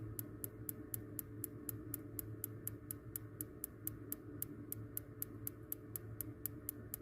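Spark igniter of a Columbia gas hot-water boiler ticking steadily, about four sparks a second, over a low steady hum. The burner is not lighting despite the sparking, which the owner blames on a blocked gas supply line to the igniter.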